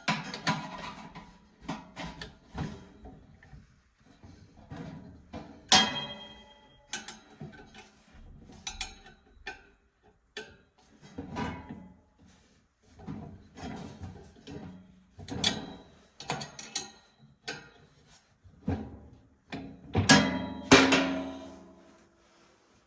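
Irregular metallic clinks, knocks and clatter of tools and sheet-metal furnace parts being handled, some strikes ringing briefly, with a louder cluster of knocks near the end.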